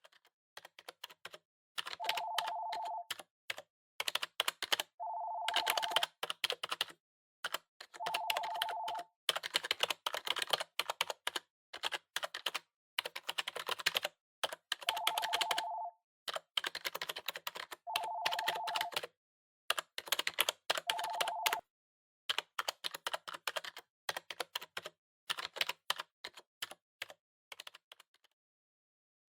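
Typing on a keyboard in quick runs of key clicks with short pauses between. A steady beep, about a second long, sounds six times among the runs.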